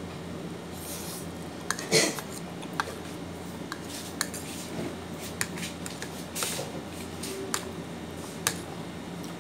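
A metal fork clinking and scraping against a plate while eating noodles, with sharp clinks scattered through and the loudest about two seconds in. A couple of short slurps come between them.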